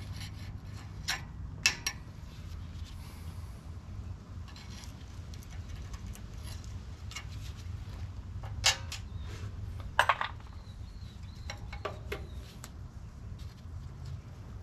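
A steel hand tool scraping and clinking against the tiller's steel chain case, with several sharp metal clinks. The loudest come about two seconds in and again around nine and ten seconds. A steady low hum runs underneath.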